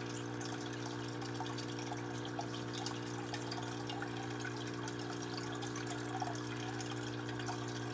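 Aquarium filter running: water trickling and splashing steadily over a steady low electrical hum.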